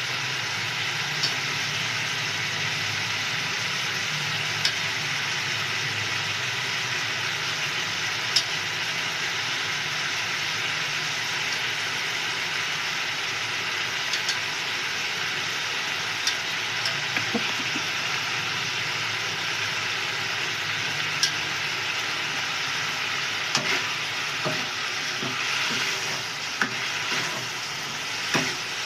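Ridge gourd sabzi frying with a steady sizzle in a pan. A spatula clicks and scrapes against the pan every few seconds, more often near the end.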